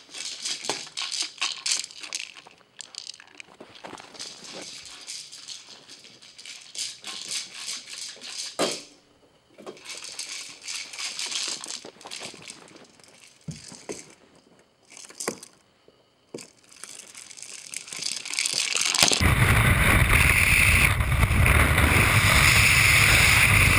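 An orange toy ball rattles in quick, irregular bursts with short pauses as a corgi puppy noses it across carpet. About nineteen seconds in, loud music abruptly takes over.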